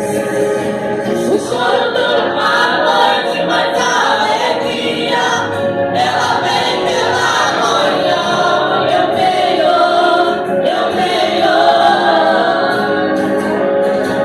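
A church praise group singing a worship song together in chorus, several voices in continuous melody.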